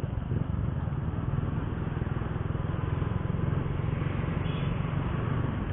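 Honda RS125fi's single-cylinder four-stroke engine running at a steady cruise while riding, a low pulsing drone under an even rush of wind and road noise.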